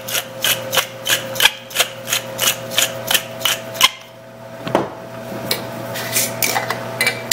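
Wooden pepper mill being twisted to grind black peppercorns, a regular run of short clicks about three a second, pausing about four seconds in before a few more turns. A faint steady hum runs underneath.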